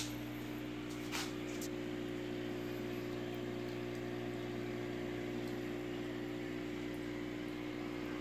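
Aquarium pump humming steadily under a soft bubbling hiss, with a sharp click right at the start and a smaller one about a second in.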